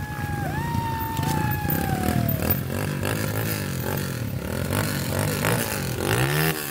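Dirt bike engines revving hard and unevenly as bikes stuck in deep mud are ridden and pushed to get free, rear wheels spinning in the mud. Engine pitch swings up and back down near the end. A separate high, slowly falling tone sounds over the first two seconds.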